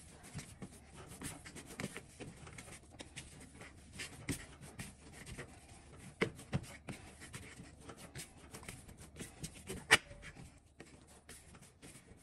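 Hands kneading yeast dough on a floured metal tray: soft, irregular pats, thuds and rubbing, with a sharper knock about ten seconds in.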